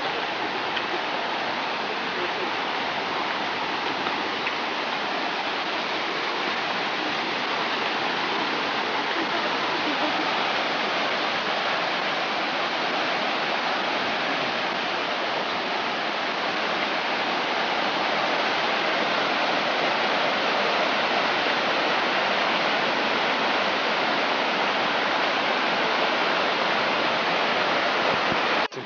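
Rushing water of a mountain creek running over rocks, a steady dense hiss that grows a little louder as it goes on.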